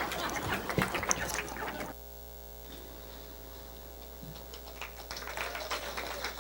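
Steady electrical mains hum from the sound system, heard plainly once the room noise and clicks die down about two seconds in.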